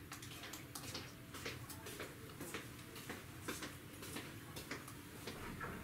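Irregular light clicks and taps, about two to four a second, over a low steady background hum.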